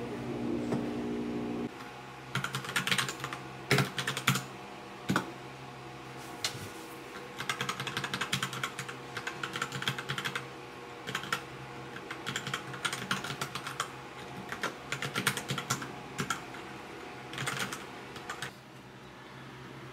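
Typing on a Royal Kludge RK61 mechanical keyboard: quick flurries of key clacks with short pauses between them, stopping shortly before the end.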